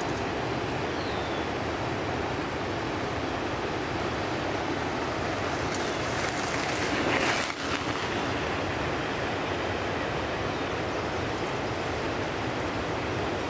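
Rushing river current running fast over rocks, a steady hiss of moving water. About halfway through it swells louder, then drops back abruptly.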